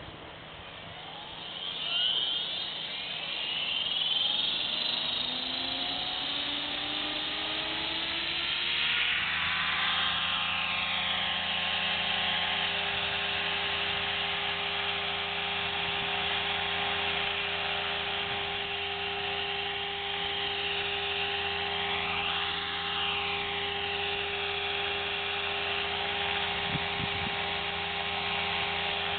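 Electric RC helicopter with an Align BL500MX brushless motor spooling up: a whine that rises steadily in pitch over about ten seconds as the rotor head comes up to speed, then a steady whine and rotor buzz. The pitch swoops up and down briefly twice later on.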